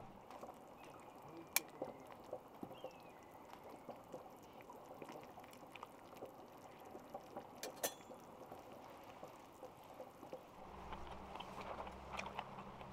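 Light rain dripping: scattered drops ticking over a faint hiss, with two sharper clicks about one and a half and eight seconds in.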